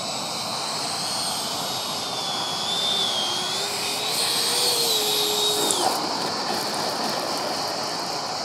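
Electric ducted fan of a Freewing JAS-39 Gripen RC jet (9-blade 80 mm Jetfan) whining, its pitch wavering, then falling away abruptly about six seconds in. A steady rushing noise remains.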